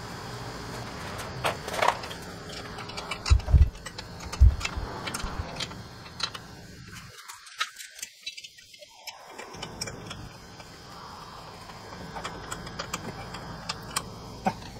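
Hand work on a car's AC condenser and its fittings: scattered metallic clicks and rattles of tools and parts, with a few heavier knocks between three and four and a half seconds in.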